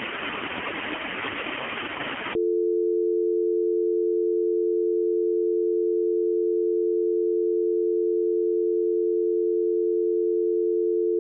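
A hiss of static for about two seconds, then a steady two-tone attention signal of a mock Emergency Alert System broadcast. The tone is held for about nine seconds and is pitched low like a telephone dial tone. It cuts off abruptly at the end.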